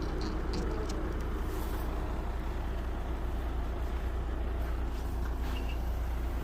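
Truck engine running steadily with a low, even drone, and a few light clicks over it.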